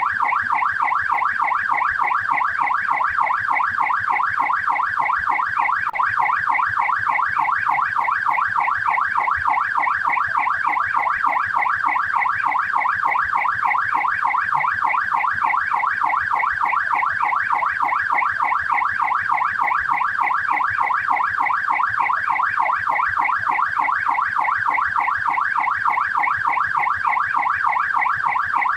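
Australian police car siren on the yelp setting: a fast, evenly repeating up-and-down wail that runs on without a break at a steady loudness.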